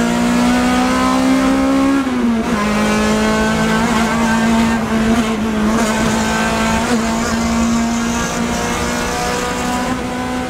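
Car engine heard from inside the cabin while driving. The revs climb, drop at an upshift about two seconds in, then hold fairly steady.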